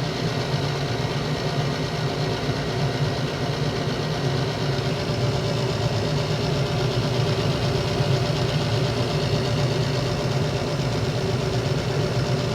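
GMC gas furnace running in heat mode with its blower motor on: a steady hum with rushing air. This is the furnace firing and heating normally, now that its clogged pressure-switch tubing has been cleared.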